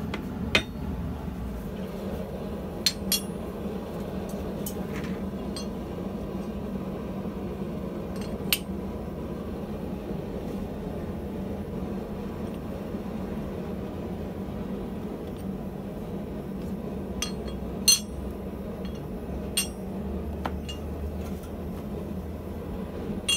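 Steel parts of a blacksmith's guillotine tool clinking and knocking together as a die is set into its guides: about nine short metal clinks, spread unevenly, over a steady low hum.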